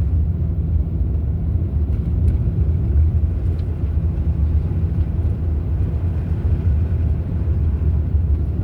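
Steady low rumble of a car's engine and tyres heard from inside the cabin while driving, with a few faint light ticks.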